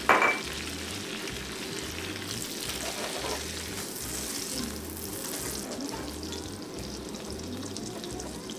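Butter sauce with coconut cream and garlic sizzling steadily in a small saucepan on a gas burner as it cooks down, stirred with a silicone spoon. A short knock right at the start.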